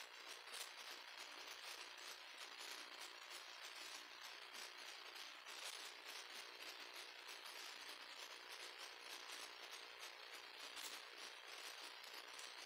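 Near silence: a faint steady hiss with a fine, rapid crackle.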